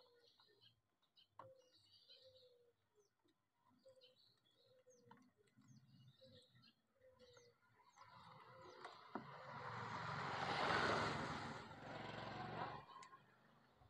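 A vehicle passing by, swelling to a peak about eleven seconds in and fading out about two seconds later. Before it, a bird calls with a short, slightly falling low note repeated about once a second, with higher chirps among them.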